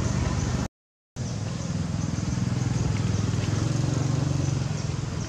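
A motor vehicle engine running steadily as a low rumble. The sound drops out to total silence for about half a second just under a second in.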